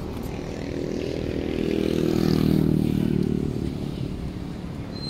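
A motor vehicle passing on the street, its engine sound growing louder to a peak about two and a half seconds in and then fading away, over steady traffic hum.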